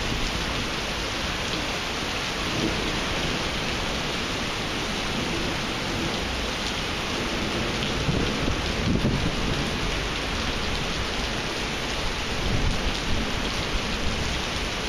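Heavy thunderstorm rain pouring onto a flooded paved parking lot, a dense steady hiss of falling water. Thunder rumbles low beneath it, swelling most about eight to nine seconds in.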